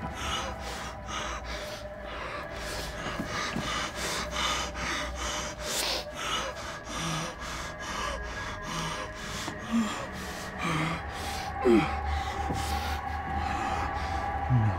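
A young woman's quick, shaky breathing, two or three gasping breaths a second, with a couple of short whimpers, the sound of someone hiding in terror. A low steady drone runs underneath.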